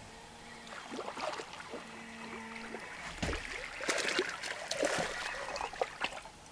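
Water splashing and dripping at the side of a fishing boat as a hooked fish is brought in and landed, with sharp knocks and clicks from about three seconds in. A short steady hum sounds twice in the first three seconds.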